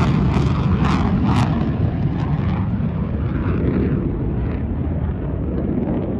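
F-35 fighter jet flying past and moving away: a loud, rumbling jet noise that crackles in the first second and a half, then loses its high end steadily as the jet recedes.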